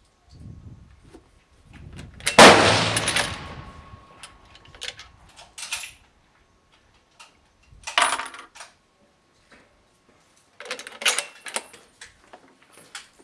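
A single loud rifle shot about two seconds in, ringing out and fading over a second or so. It is followed by shorter, sharper knocks and clacks around eight and eleven seconds in.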